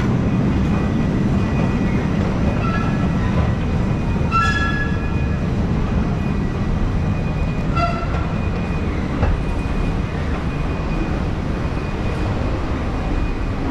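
Metro station escalator running, a steady low mechanical rumble echoing in the long tunnel, with two brief high-pitched squeals about four and eight seconds in.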